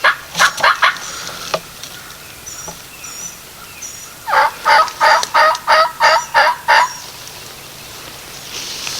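Turkey yelping: a short burst of notes right at the start, then, after a pause, a run of about nine evenly spaced yelps lasting two to three seconds. Faint high songbird chirps can be heard between them.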